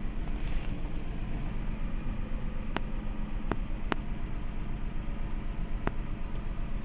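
A steady rushing noise, with four short sharp clicks at about three, three and a half, four and six seconds in.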